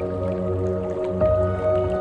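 Soft background music of sustained, slowly changing notes.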